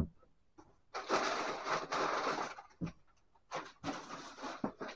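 Packing paper rustling as it is pulled about inside a cardboard shipping box, in two long stretches, with soft knocks against the box near the start and about three seconds in.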